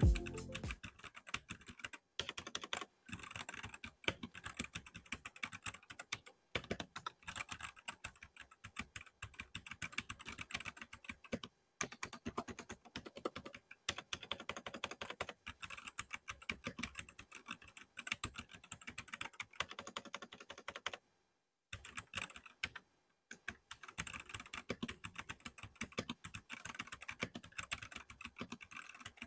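Typing test on a Gamen Titan Pro gasket-mount mechanical keyboard: a quick, irregular run of key clicks and key strokes, with a short pause about two-thirds of the way through.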